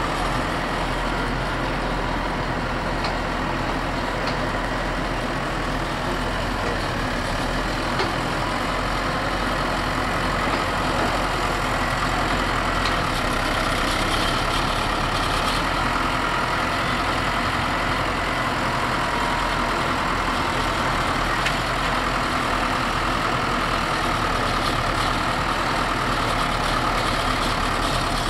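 Tractor engine running steadily while the tractor works a silage pit.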